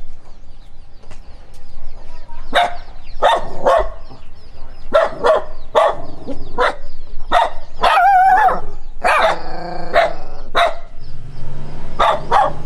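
Dog barking repeatedly in short sharp barks, in irregular runs with brief pauses, starting about two and a half seconds in. About eight seconds in comes a longer, wavering, drawn-out bark.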